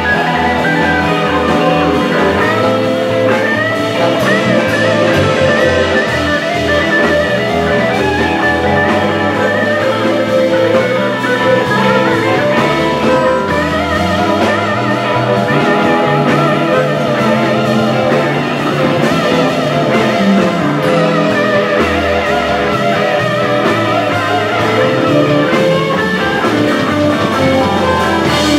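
Live electric blues band playing an instrumental passage, with electric guitars to the fore over bass and drums, and keyboard, fiddle and harmonica in the mix.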